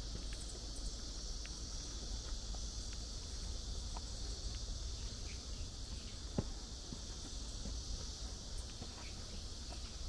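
Steady high-pitched insect chorus in a forest, over a low rumble, with faint scattered ticks of footsteps on a dirt path and one sharper tick a little past halfway.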